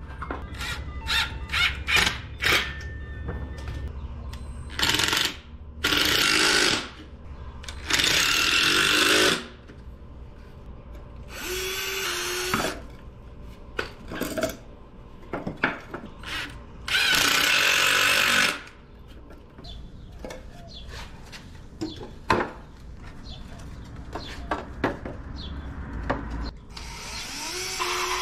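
Cordless drill running in short bursts of a second or so, boring pilot holes and driving screws into pine 2x4 cross pieces, about six runs in all. Sharp knocks and clicks of the lumber and tools between the runs, most of them in the first few seconds.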